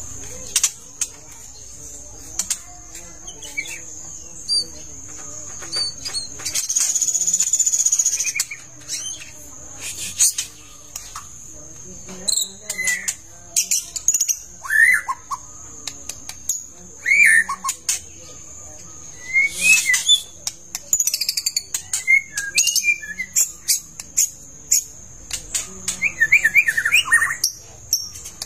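Long-tailed white-rumped shama (murai batu) giving scattered short whistled calls and song phrases, with sharp clicks between them, over a steady high-pitched buzz. The calls come in a quicker run near the end.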